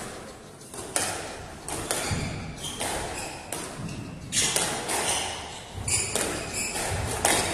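Squash rally: the hard rubber ball is struck by rackets and smacks off the walls in a quick series of sharp hits, about one or two a second, each ringing briefly in the enclosed court. Short high squeaks of court shoes on the wooden floor come in between the hits.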